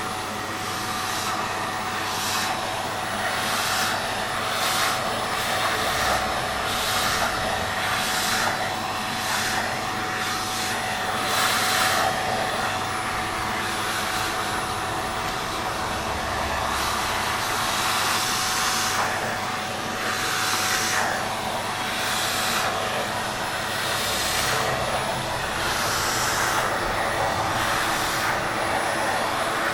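Vacuum cleaner running steadily with a constant motor whine, its rushing air swelling and easing every second or so.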